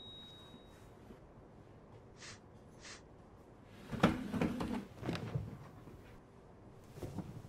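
A chair being pulled up and sat in: a cluster of knocks and scrapes about four seconds in, and a few lighter clicks near the end.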